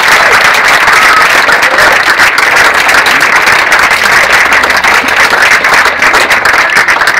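A roomful of guests applauding: loud, steady clapping from many hands at once.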